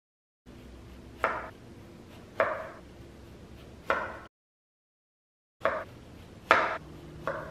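Chef's knife slicing an orange on a bamboo cutting board: sharp knocks of the blade striking the board, each ringing briefly. Three knocks come about a second apart, then after a dead-silent gap three more.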